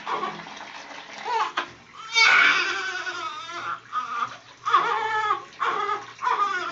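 Infant crying in a series of high-pitched wails, the longest starting about two seconds in, followed by several shorter cries.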